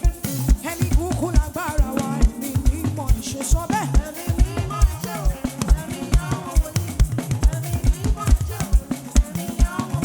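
Live upbeat African praise music from a band, with a drum kit keeping a steady kick-drum and snare beat and singing carried over it.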